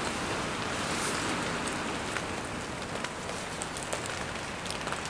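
Heavy rain in a storm: a steady rushing hiss with scattered sharp ticks of drops striking close by.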